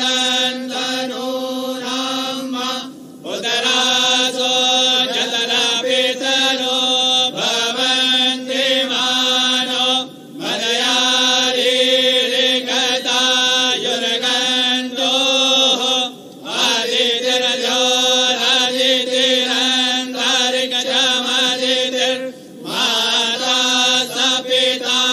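A voice chanting a mantra in long phrases held at a fairly steady pitch, with a short pause about every six seconds.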